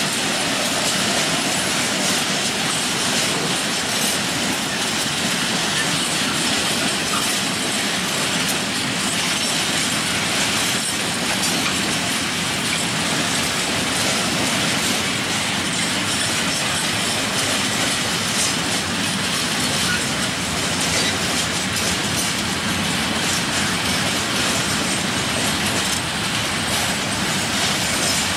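Freight train rolling steadily past, a continuous noise of steel wagon wheels running on the rails.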